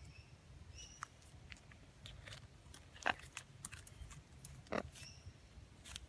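Blue-and-gold macaw's beak clicking and cracking on a dead wooden perch: irregular sharp clicks, loudest about three and five seconds in. A couple of short bird chirps.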